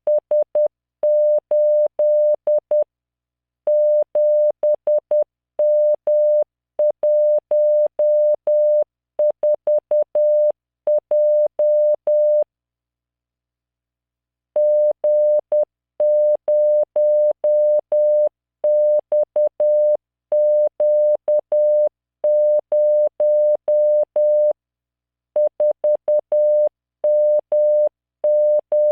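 Computer-generated Morse code practice: a single pure tone around 600 Hz keyed in dots and dashes at 10 words per minute, sending random five-character code groups of letters, digits and punctuation. The keying stops for about two seconds near the middle.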